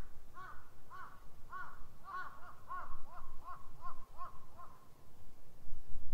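A crow cawing: a run of about a dozen short caws that come closer together in the middle and die away about three-quarters of the way through, over a low rumble.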